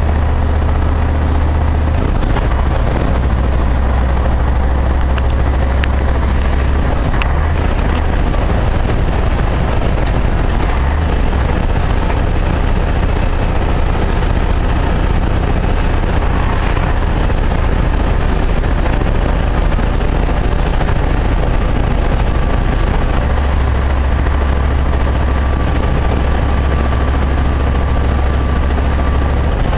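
Steady engine and road noise heard from inside a moving vehicle's cab while cruising: a low engine drone whose note shifts slightly a few times, over tyre and wind noise.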